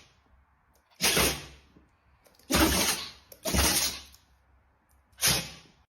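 A dog sneezing four times, each a short, sudden, breathy burst that starts sharply and fades within about half a second, the sneezes coming a second or so apart.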